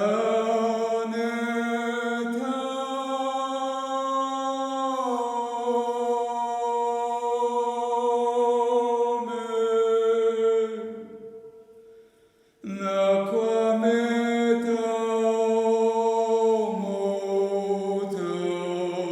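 Several voices toning together without words in long held notes, changing pitch every few seconds, as in a sound-healing chant. The voices fade out about eleven seconds in and come back in together a second and a half later.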